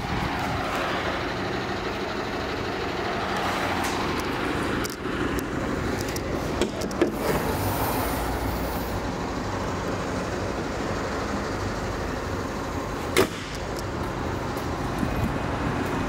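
Mercedes-Benz C220 CDI's four-cylinder diesel engine idling steadily. Two sharp clicks are heard, one about a third of the way in and one near the end.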